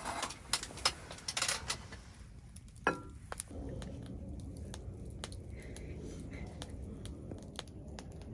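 Scattered small sharp clicks and clatters of handling at a meal, dense for the first two seconds and sparser after, over a low steady rumble that sets in about three and a half seconds in.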